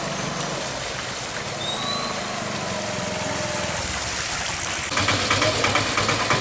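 Small motorcycle engine running as the bike rides through shallow floodwater toward and past the listener, with water splashing and faint bird chirps. About five seconds in, it gives way to the louder, rapidly pulsing engine of a Piaggio auto-rickshaw driving through the water.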